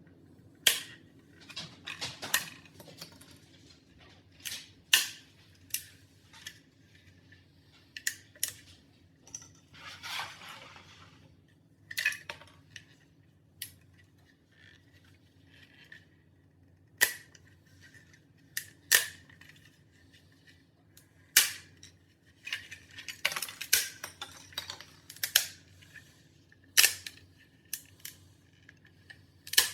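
A series of sharp, irregular clicks and clacks of hard objects knocking together, with a brief rustle about a third of the way in and a faint steady hum underneath.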